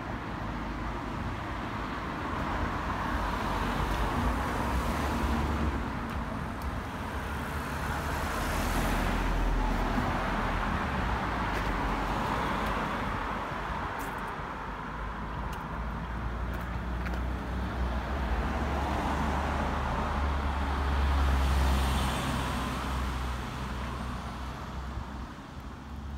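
Cars and a van driving past on a road, the traffic noise swelling and fading several times as each vehicle passes.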